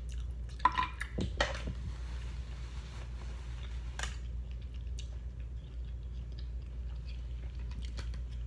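Close-up chewing of seafood, with a few sharp clicks and crackles about a second in and another near the middle, over a steady low hum.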